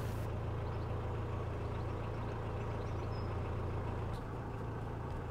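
Narrowboat engine running steadily at cruising pace, a low, even hum that drops slightly in level about four seconds in.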